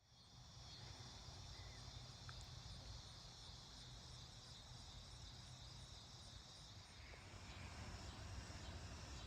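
Faint insect chorus, crickets chirping in steady pulsing trills, over a low rumble that grows louder near the end.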